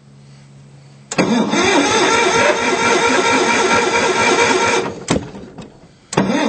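Kohler 18 hp engine of a Hesston 180 Front Runner riding mower being started: about a second in it kicks into loud running for some four seconds, dies away, a click, then it comes in loud again near the end.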